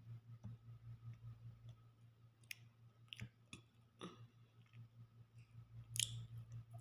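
Faint chewing while eating, with a few sharp mouth clicks, the loudest about six seconds in, over a low steady hum.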